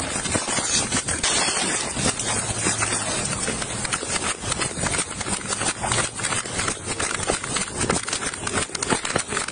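Police body-worn camera audio during a foot chase: irregular thumps and rattles of running footfalls and jostled gear over a constant hiss of wind and clothing rubbing on the microphone.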